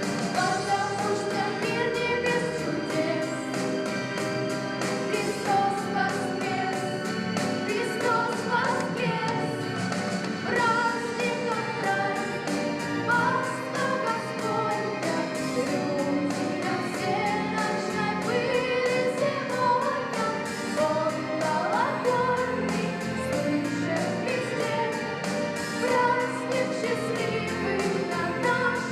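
A choir singing, several voices holding and moving through a melody together.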